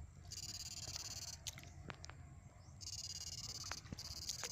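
High-pitched electric buzz from an electrofishing rig, switching abruptly on and off in spells of about a second as the probe is keyed in the water, with a few sharp clicks.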